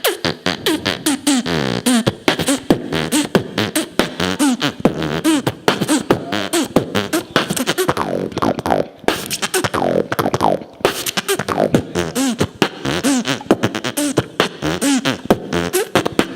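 Human beatboxing: a fast run of mouth-made kick, snare and click sounds with gliding pitched vocal effects woven between them, with brief breaks about nine and ten and a half seconds in.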